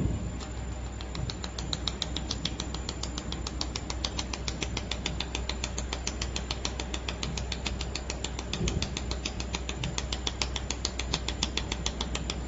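Pulsed laser welding machine firing a rapid, regular train of shots, each pulse a sharp click at about six a second, over a steady low machine hum.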